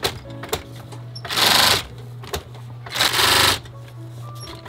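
Industrial roller-foot sewing machine stitching a leather boot upper with its mesh lining: two short runs of fast stitching, about a second in and about three seconds in, with a steady low hum between them.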